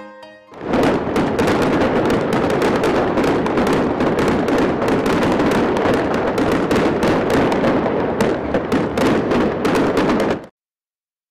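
Loud, dense crackling of many rapid pops and bangs, starting about half a second in and cutting off suddenly about a second before the end.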